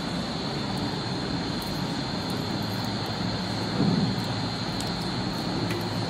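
Steady rushing room noise with a constant high chirring of crickets, a few light clinks of cutlery on steel bowls and plates, and a brief louder low sound about four seconds in.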